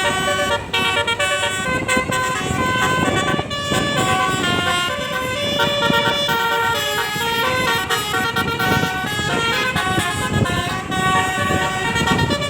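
Multi-tone telolet bus horns playing melodies without a break, the notes stepping up and down in pitch and several tunes overlapping, over a noisy low rumble.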